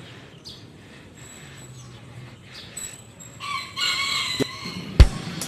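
A rooster crows once, a call of about a second starting about three and a half seconds in, over faint outdoor background with a few short high bird chirps. A sharp, heavy thump comes near the end.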